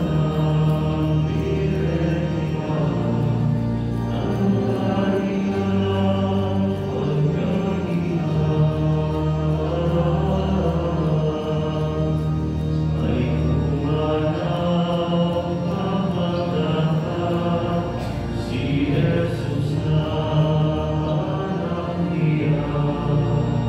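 Church choir singing a slow hymn in long held notes over sustained organ chords.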